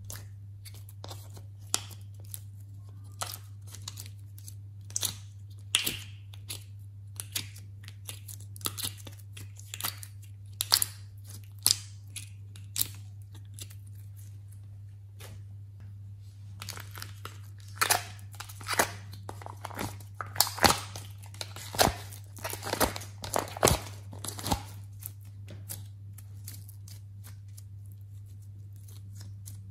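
Soft clay being squeezed, pulled apart and stretched by hand, giving sticky crackles and tearing pops. They are scattered at first and come thick and fast in the second half, over a steady low hum.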